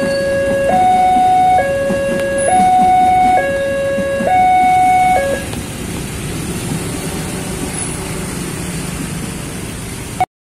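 Railway level-crossing warning alarm sounding its two-tone signal, a low and a high note alternating, each held just under a second. It stops about five seconds in, leaving steady street noise, which cuts off abruptly near the end.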